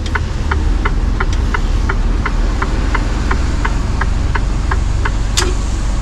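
Mercedes-Benz Actros truck cab: the turn-signal indicator ticking about three times a second over the steady low drone of the diesel engine, the ticking stopping about five seconds in, followed by one sharp click.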